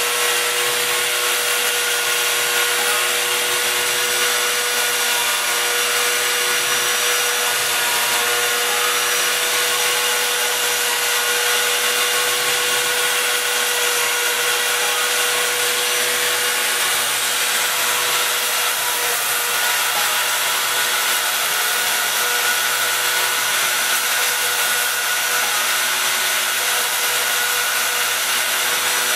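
Router spindle on a homemade CNC gantry mill running at speed while it cuts slots in a white sheet: a steady whine over a constant hiss.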